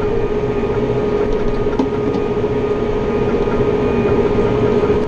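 New Holland T4.100 tractor's diesel engine running steadily under load, pulling a chisel plow, heard from inside the closed cab as a constant drone with a steady hum.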